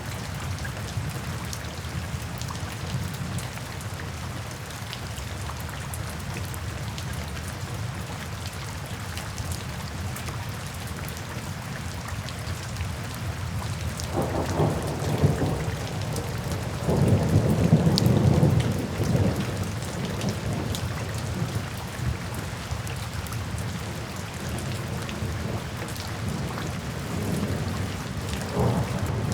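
Steady heavy rain falling, with thunder rumbling twice about halfway through, the second roll the louder and longer, and a fainter rumble near the end.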